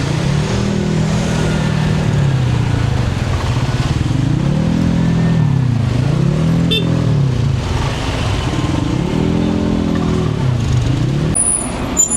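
Road traffic, with motorcycle and car engines rising and falling in pitch several times as they speed up and slow down.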